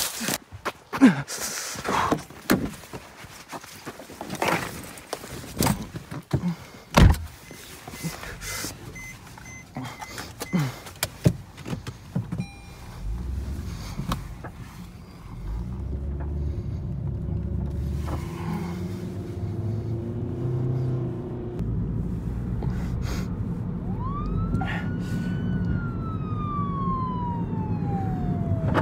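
Footsteps crashing through dry fallen leaves and brush, with knocks from the phone being handled, then the steady low rumble of a car driving, heard inside the cabin. Near the end a siren wails: it rises quickly, slides slowly down, and starts rising again right at the end.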